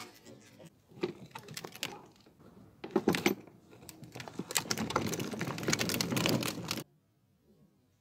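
Hard plastic wheel of a child's ride-on toy tractor rolling over gritty concrete and onto rubber toy crocodiles, grit crackling and clicking under the tyre. A cluster of sharp clicks comes about three seconds in, then a dense crackling that cuts off abruptly near the end.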